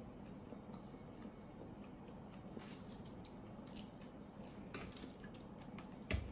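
Eating sounds of a mukbang: soft wet smacks and clicks of chewing pasta, with a fork working in a foil tray. A single sharp knock comes near the end.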